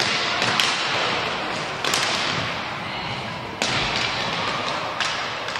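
Roller hockey sticks and puck clacking on a hard court floor: about five sharp knocks, each echoing in the large hall, over a steady background noise.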